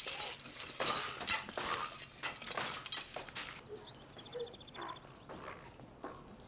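A scuffle of crashing and breaking, with things being smashed and knocked over. Then it quietens to a small bird's rapid high trill and a couple of short chirps.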